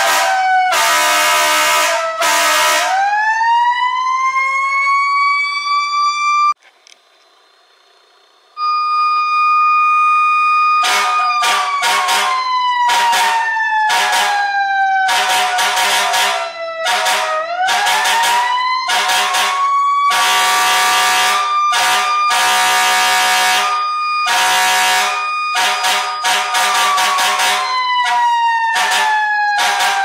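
Fire-truck-style siren wailing, its pitch sliding slowly down and then back up, under a run of many short horn blasts. After about six seconds everything cuts out for roughly two seconds. The siren comes back on a steady tone, then falls and rises again while the horn blasts keep going.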